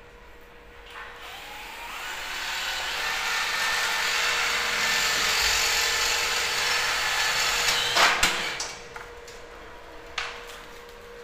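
Electric winch of a cable-hung freight lift running and hoisting the platform: it starts about a second in with a rising whine, runs steadily, and stops with a sharp clunk. A smaller knock follows near the end.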